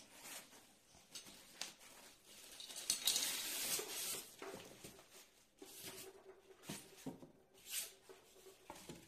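Plastic packaging and bubble wrap crinkling and rustling, with cardboard box flaps scraping and rubbing as an appliance is unpacked by hand. The crinkling is loudest around three to four seconds in, followed by a few short rustles and scrapes.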